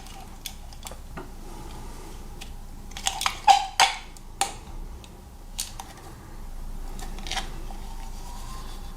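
Scattered sharp clicks and knocks of handling, the loudest a cluster around three and a half to four seconds in, with a few fainter ones after.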